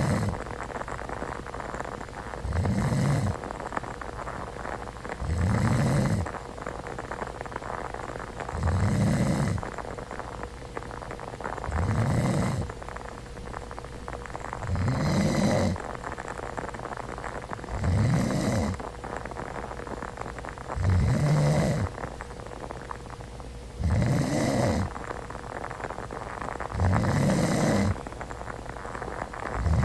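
A person snoring in sleep, one low snore about every three seconds in a steady rhythm.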